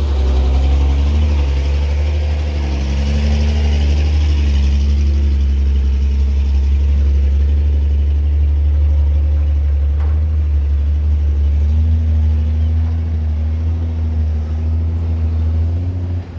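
Caterpillar 312B excavator's diesel engine running with a deep, steady drone whose pitch shifts slightly now and then. The level drops abruptly near the end.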